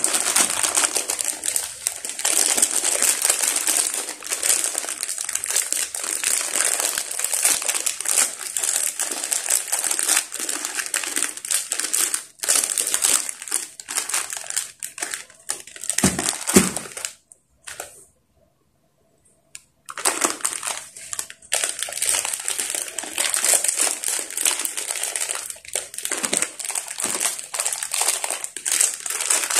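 Plastic instant-noodle wrappers and seasoning sachets crinkling as they are handled and torn open. There are a couple of low knocks about sixteen seconds in, and the crinkling briefly stops soon after.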